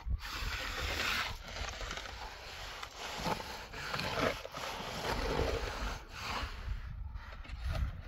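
Steel hand trowel scraping and smoothing wet concrete on the top of a cinder-block wall in repeated strokes, with a shovel scraping through the concrete mix.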